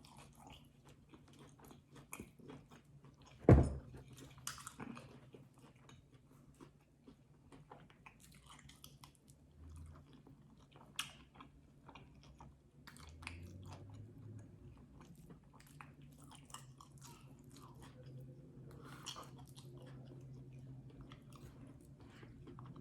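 Close-miked chewing and biting of food, with small crunchy bites and lip and mouth clicks. There is one sharp, loud knock about three and a half seconds in.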